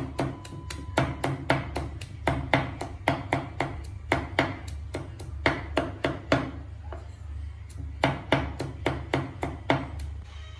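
A cleaver mincing raw pork on a thick round wooden chopping block, with quick repeated knocks of about three to four a second. There is a short slower stretch about two-thirds of the way through before the chopping picks up again.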